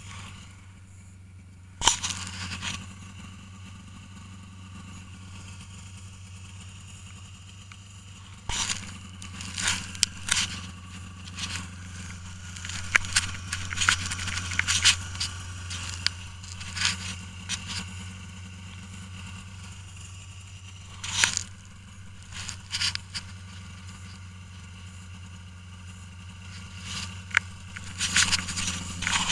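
Snowmobile engine idling steadily, with repeated bursts of crunching and scraping in packed, slushy snow around the stuck sled.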